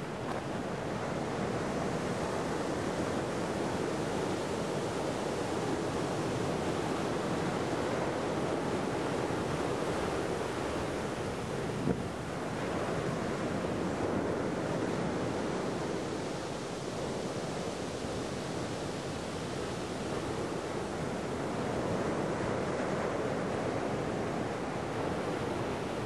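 Ocean surf washing against rocks in a steady hiss that swells and eases slowly, with some wind on the microphone. A single short click about halfway through.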